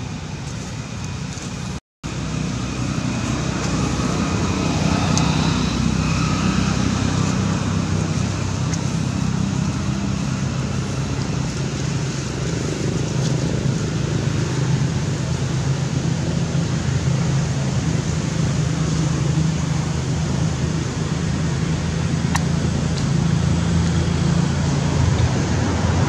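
Steady low rumble of engine or traffic noise with a constant hum. It cuts out for a moment about two seconds in, then carries on a little louder.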